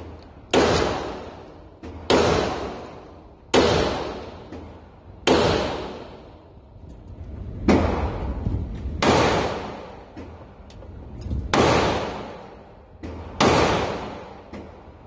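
Handgun shots fired at an indoor range, about nine at an uneven pace a second or two apart, each with a long echoing tail.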